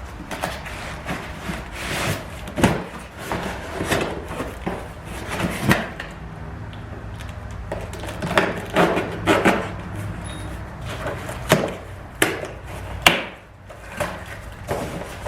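A cardboard box and the forge parts packed in it being handled and unpacked: irregular knocks, clunks and scrapes, several a second at times, with quieter stretches between.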